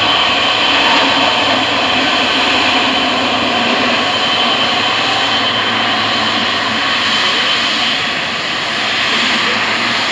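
Boeing 777's two GE90 turbofan engines running as the airliner rolls and turns on the runway: a loud, steady jet rush with a high whine over it.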